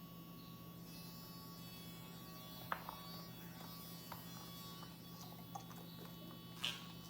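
Casfuy electric dog nail grinder running with a steady hum while trimming a dog's nails, with a few short clicks.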